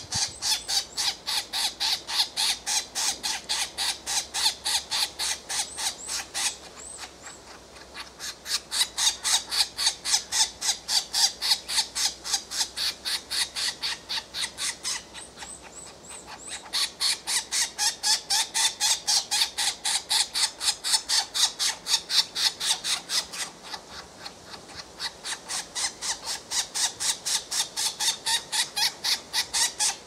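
European green woodpecker nestlings begging from the nest hole as a parent feeds them: a rapid run of harsh, rasping calls, about four a second. The calling comes in long runs broken by three short pauses.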